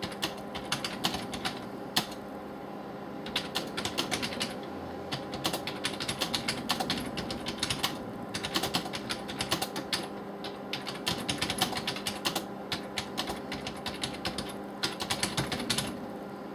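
Typing on a computer keyboard: quick runs of key clicks broken by brief pauses, over a steady low hum.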